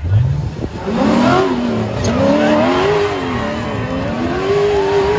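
Ultra4 off-road buggy's engine revving hard under load as it claws up a steep dirt bank, the revs rising and falling over and over.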